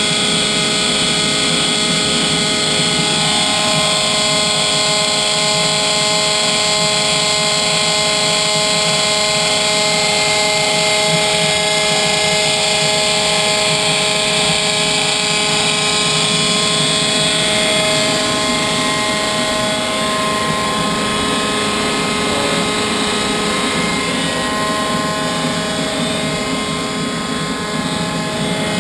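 Homemade turbocharger gas turbine running steadily with no load, turning only its nylon reduction gears: a steady rushing noise with several steady whining tones over it.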